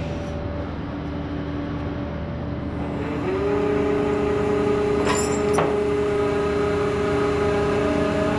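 A vehicle engine running steadily with a droning hum. About three seconds in it gets louder and a steady higher whine joins it and holds.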